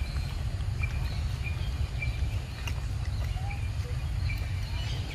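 Outdoor ambience: a steady low rumble, with a short high chirp repeating about every three-quarters of a second.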